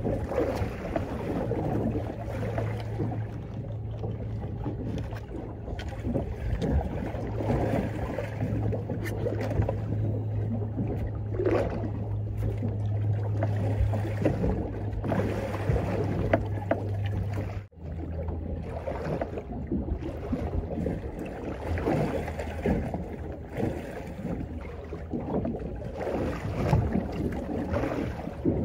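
Choppy sea slapping and sloshing against the hull of a small fibreglass boat, with wind on the microphone and a steady low motor hum underneath. The hum cuts out for an instant about two-thirds of the way in and comes back slightly lower.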